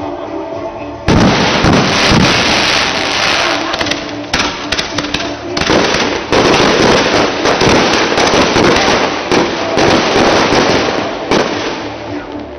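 Aerial fireworks bursting overhead: a dense run of crackling bangs starts suddenly about a second in and surges again around six seconds.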